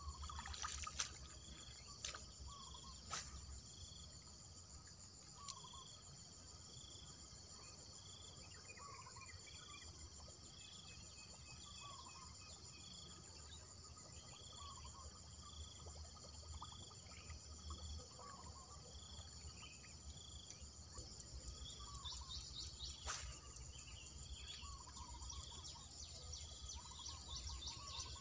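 Open-country ambience: a bird repeating a short high call about once a second, lower falling chirps every couple of seconds, and a steady high insect hiss, with two sharp clicks.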